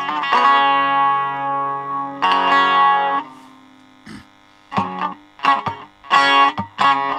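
Bağlama (long-necked Turkish saz) played solo with a pick: plucked and strummed notes ring out, stop for about a second and a half past the middle, then sharp strummed strokes start again.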